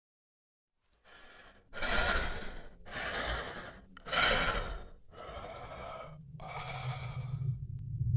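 Custom Shin Godzilla creature sound effect: a run of six breathy, hissing exhales of about a second each, the second and fourth loudest. A low rumble builds under them near the end.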